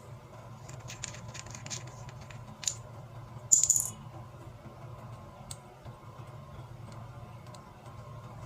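Small hard objects clicking and clinking, with a brief louder rattle about three and a half seconds in, over a steady low hum.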